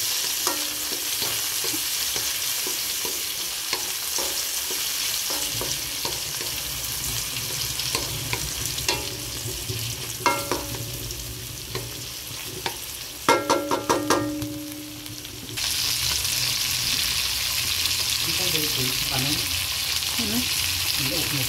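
Vegetables frying in hot oil in a metal wok with a steady sizzle, stirred with a wooden spatula that scrapes and knocks against the pan. There is a quick run of knocks about 13 seconds in, after which the sizzle briefly drops before picking up again.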